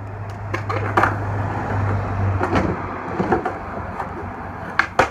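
Skateboard wheels rolling on concrete as the rider runs in and pushes, with a few sharp clacks of the board, two of them close together near the end.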